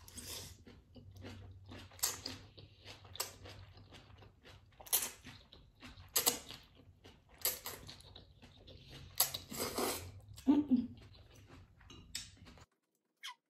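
A person chewing a close-miked mouthful of Buldak kimchi ramen noodles with cabbage kimchi, with sharp crunches every second or so. The sound cuts off suddenly near the end.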